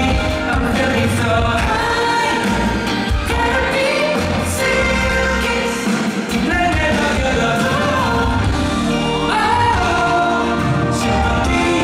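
Male pop vocalist singing live with a live band of drums, bass and keys accompanying him, amplified through a concert hall's sound system.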